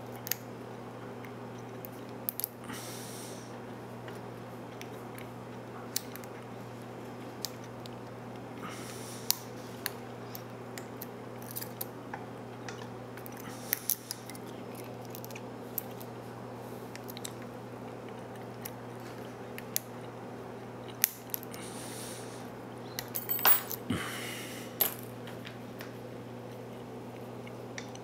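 Small, irregular metallic clicks and brief scrapes of a lock pick and tension wrench single-pin picking the serrated pins of a Brinks 527 padlock, with a quicker flurry of clicks near the end. A steady low hum sits underneath.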